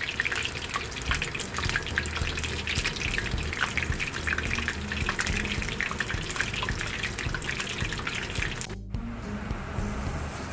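Shrimp tempura deep-frying in hot oil: dense sizzling and crackling. About nine seconds in it cuts off abruptly and gives way to a softer, steadier hiss.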